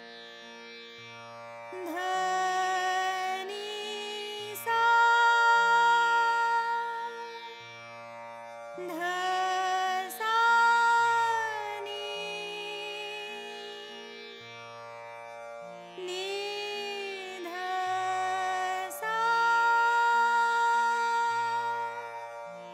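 A woman singing a Hindustani classical riyaz exercise: the Merukhand orderings of komal dhaivat, komal nishad and upper Sa, as phrases of held notes with small glides between them. A lower instrument sounds the notes beneath the voice.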